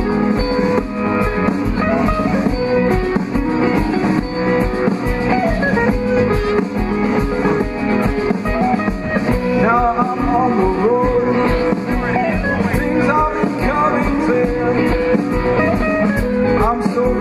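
Guitar-led rock music with a singing voice.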